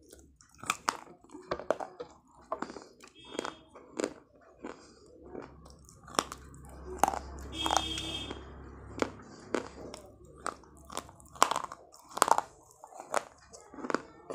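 Pieces of baked clay (terracotta) being bitten and chewed, a crisp crunch a little faster than once a second.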